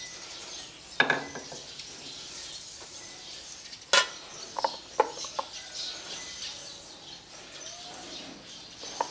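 Scattered clinks and knocks of a metal scoop against a stainless-steel mesh strainer and bowl as shredded red cabbage is scooped into a glass jar. The sharpest clink comes about four seconds in, followed by a quick cluster of lighter ones.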